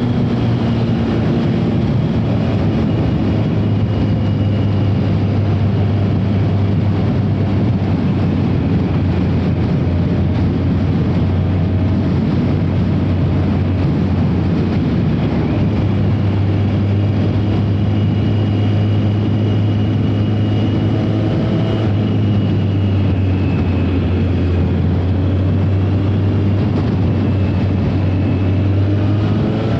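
Yamaha FJ1200's air-cooled inline-four engine pulling the bike along at a steady cruise, with a rush of wind and road noise. The engine note holds steady for most of the time and rises near the end.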